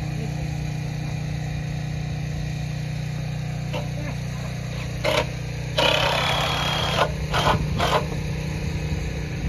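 An engine running steadily with a low, even drone. A few short clatters from the building work break in about halfway through, one lasting about a second.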